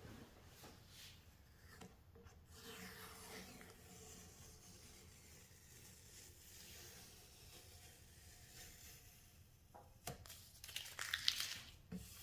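Faint rustling and crinkling, with a louder stretch of crackling and tearing near the end.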